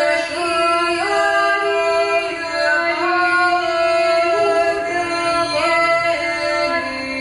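Women of a Lithuanian folk ensemble singing a folk song in several parts, holding long notes that step together from one pitch to the next.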